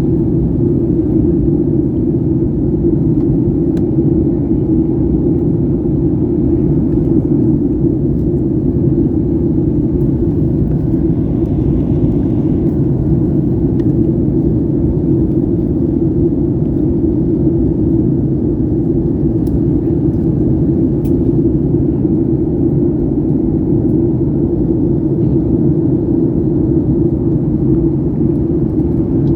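Steady, loud cabin noise inside a Boeing 737 MAX 8 airliner in flight: the low, even rumble of its CFM LEAP-1B engines and the airflow over the fuselage, heard from a window seat behind the wing.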